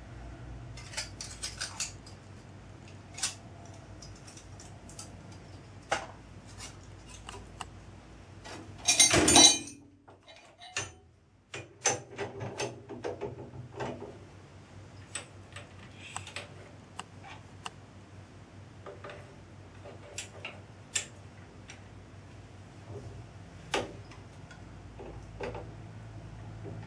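Scattered clicks and knocks of metal being handled: an aluminium casting and the parts of a steel machine vice being set up on a milling machine table. About nine seconds in there is a louder clatter lasting about a second.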